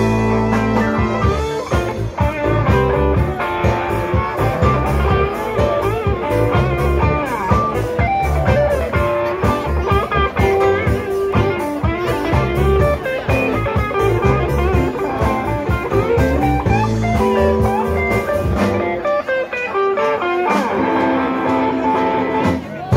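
Live rock band playing without vocals: electric guitar to the fore over drums and bass.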